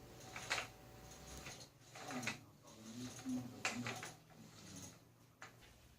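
Paint roller rolled over a wall to spread primer: faint, intermittent swishing strokes.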